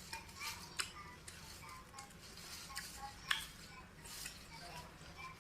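Close-up eating sounds of raw vegetables being chewed: a run of crisp crunches and mouth clicks, the sharpest about three seconds in.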